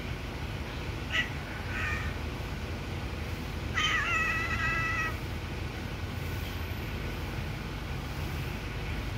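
Kitten meowing: two short, high meows about a second in, then one longer, steadier meow about four seconds in, over a steady low background rumble.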